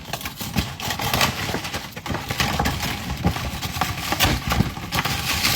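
Kitchen utensil and pan clatter over a steady hiss: irregular knocks and scraping while browned ground beef is worked in the pan.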